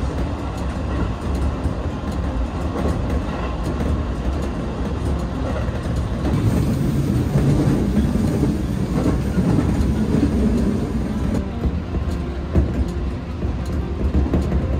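Passenger train running on rails: a steady low rumble that swells a little in the middle.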